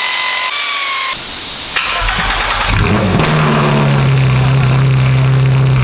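Short clipped bursts of a power tool whining, then about two seconds in the Porsche GT3 RS's 4.0-litre flat-six starts through its newly fitted Dundon Motorsport headers-back Inconel exhaust. The engine revs briefly and settles into a loud, steady idle.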